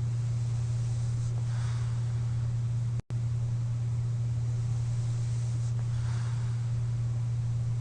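Slow sleep breathing against a CPAP machine: two faint airy breaths about four and a half seconds apart over a loud, steady low hum. The sound cuts out for an instant about three seconds in.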